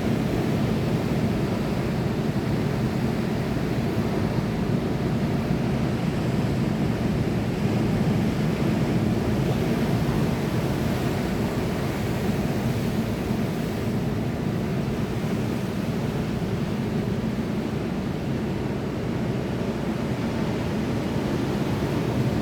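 Sea waves and surf making a steady, low rushing noise with no distinct breaks.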